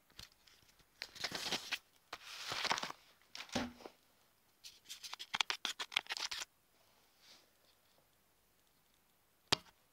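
Metallic foil bubble-padded mailer rustling and crinkling as it is handled and opened. A quick run of crackles comes about five to six and a half seconds in, and a single sharp click near the end.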